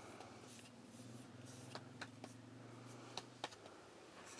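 Near silence: a faint steady low hum with a few soft, sharp ticks.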